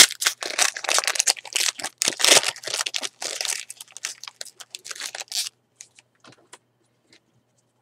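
Plastic wrapper of a 2012 Topps Series 1 baseball card pack crinkling and tearing as it is ripped open. The crackle stops about five and a half seconds in, followed by a few faint ticks.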